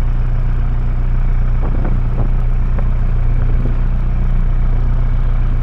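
Inboard diesel engine of an Albin 27 cruiser running steadily under way, a constant low drone with a few faint knocks in the middle.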